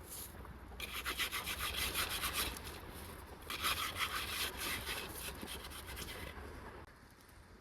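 Hand saw cutting through wood in two spells of rapid back-and-forth strokes, the second starting about three and a half seconds in.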